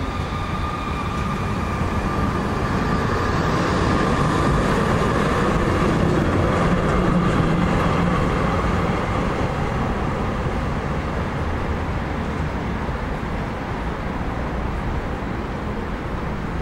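Vienna E2 tram and trailer pulling away and passing, its wheels rumbling on the rails with a steady high whine through the first half. The sound grows to its loudest about halfway, then slowly fades as the tram moves off.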